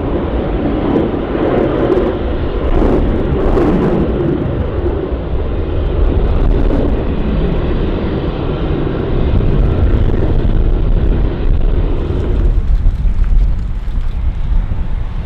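Jet airliner engines running at takeoff power, a loud continuous roar. About twelve seconds in the sound changes to a deeper rumble: a Boeing 787's engines spooling on its takeoff roll.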